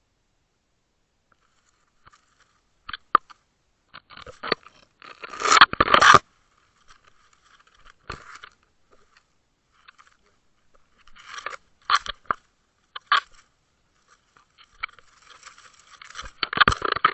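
Underwater crunching and scraping clicks in irregular clusters as a pike seizes and mouths a deadbait rig. The loudest run of crunches comes about five to six seconds in, with smaller bursts later and another cluster near the end.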